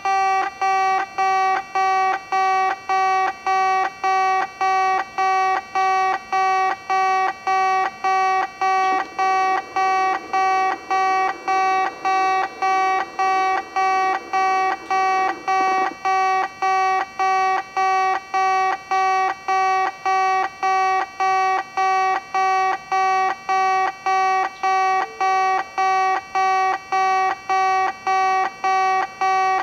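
Electronic level-crossing alarm at a Kintetsu yard crossing, sounding one steady-pitched ring after another at an even pace.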